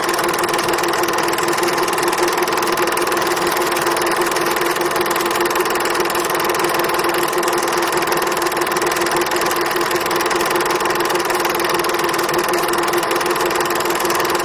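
A motor running steadily, an even mechanical drone that holds the same pitch throughout.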